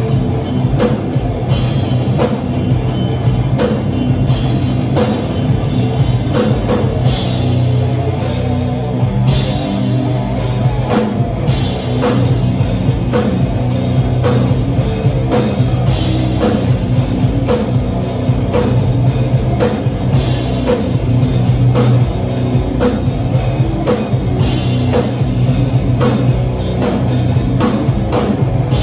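Heavy rock band playing live: distorted electric guitars and bass over a drum kit keeping a steady beat.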